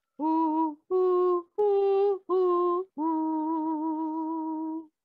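A woman singing a vocal exercise: five notes stepping up over three notes and back down, the first four short and detached, the last held for about two seconds with light vibrato.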